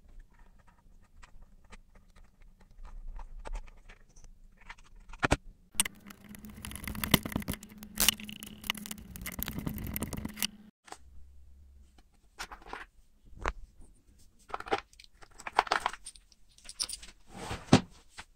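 Hands handling small plastic parts and a screwdriver while assembling a speaker terminal block and wired enclosure: scattered clicks and taps, with a longer stretch of scraping and rattling in the middle.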